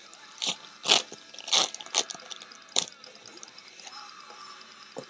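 Trading cards being flicked through by hand: about five short, papery snaps in the first three seconds, with soft handling rustle between.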